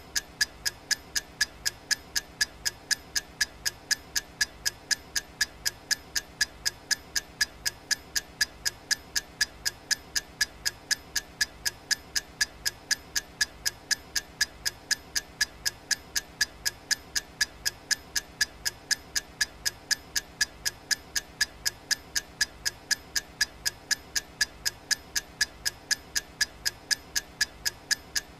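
Clock ticking sound effect: sharp, evenly spaced ticks, a few a second, each with a bright ringing click.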